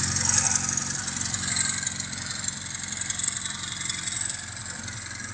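VAZ-2101 Zhiguli's four-cylinder petrol engine running with a quick, repeating knock whose cause the owner does not know.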